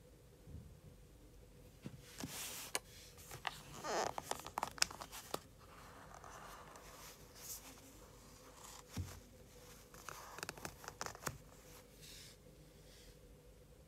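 Hands handling an Apple Watch band's cardboard packaging tray: irregular rustles, scrapes and light clicks, busiest about four to five seconds in, over a faint steady hum.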